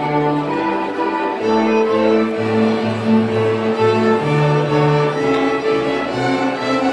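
Student string ensemble of violins and cellos playing live together, with bowed melody notes held and changing over a lower cello line.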